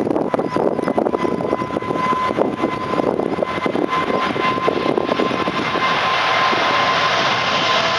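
Boeing 777-200ER's twin GE90 jet engines at takeoff thrust during the takeoff roll and rotation: a crackling roar with a steady high whine, becoming smoother and brighter in the last few seconds.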